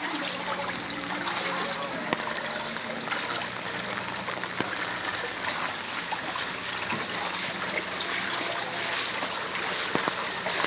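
Rain falling onto standing floodwater: a steady hiss thick with small drop splashes, with a faint low hum underneath.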